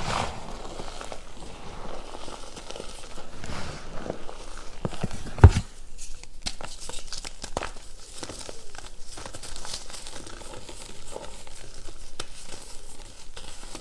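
Hands crushing and crumbling lumps of re-formed gym chalk in loose chalk powder: a continual soft crunching and gritty crackle. There is one heavy thump about five and a half seconds in.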